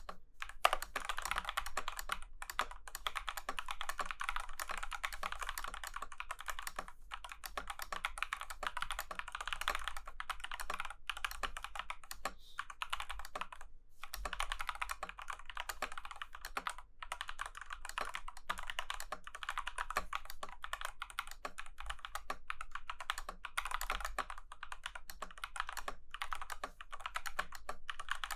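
Fast, continuous typing on a Womier Retro M87 75% mechanical keyboard: a dense stream of key clacks, with a few short pauses, including one of about a second and a half near the middle.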